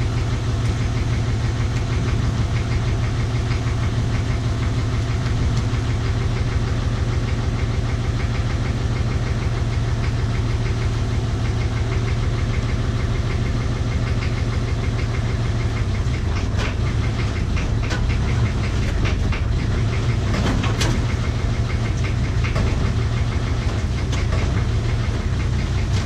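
Excavator's diesel engine running steadily with a fast even pulse while it slowly lifts a suspended load. From about 16 seconds in, scattered light clicks and knocks join it.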